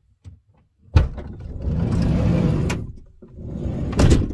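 Hyundai Starex sliding side door unlatched with a sharp click and rolled open along its track, ending in a clunk. A second, shorter slide with another knock follows near the end.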